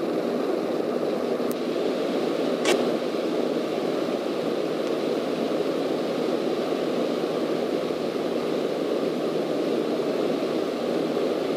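Steady cockpit drone of a Cessna single-engine light aircraft in flight: piston engine, propeller and airflow heard from inside the cabin. A single brief click sounds a few seconds in.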